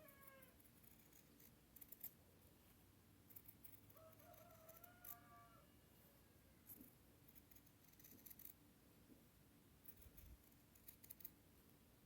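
Faint snips of scissors cutting a circle out of fabric, coming in small clusters every second or two. A brief drawn-out call sounds in the background about four seconds in.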